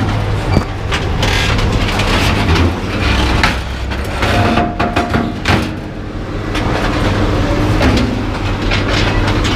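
A heavy engine running steadily at a low pitch, with scattered metal clanks and knocks from scrap metal being handled.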